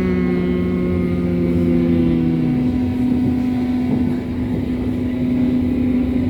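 Berlin U-Bahn type H train running, heard from inside the car: a steady rumble with several steady drive tones humming over it. Two of the tones stop about two and a half seconds in, while one keeps going.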